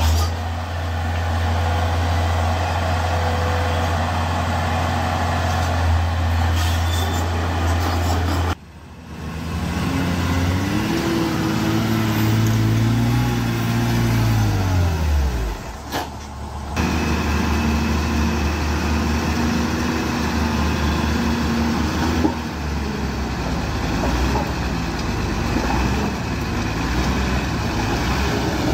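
Heavy diesel earthmoving machinery running steadily. Between about 10 and 16 seconds in, one engine's pitch rises and then falls off as it revs and eases back. The sound breaks off abruptly twice, near 9 and 16 seconds in.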